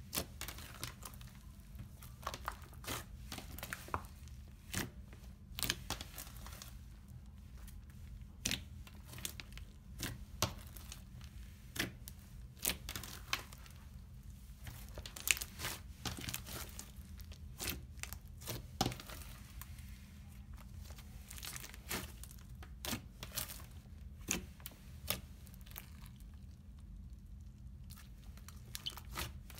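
Thick slime mixed with foam beads being poked, kneaded and stretched by hand, giving many irregular sharp pops, clicks and crackles over a faint low hum.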